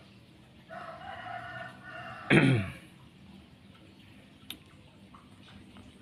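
A rooster crowing once: a drawn-out pitched call that ends in a loud falling note about two seconds in.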